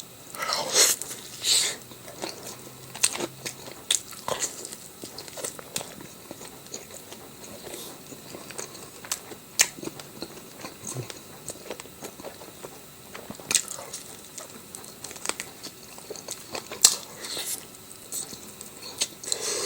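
A person eating close to the microphone: chewing and biting, with irregular crunches.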